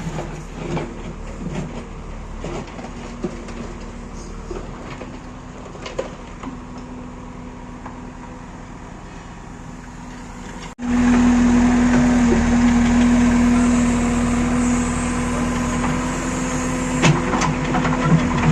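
Diesel engine running steadily, with scattered light clicks and knocks. About eleven seconds in there is an abrupt cut to a much louder, closer engine running with a strong, steady hum.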